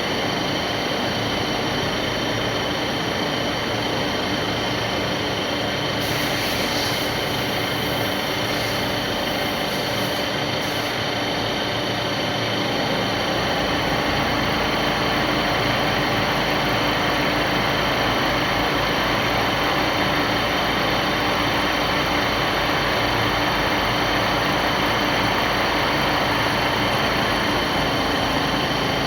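Milling machine running steadily, its cutter milling the flats of a hexagon on an M56 steel nut indexed on a CNC rotary table, with a steady high whine over the cutting noise. The noise grows slightly louder and deeper from about fourteen seconds in.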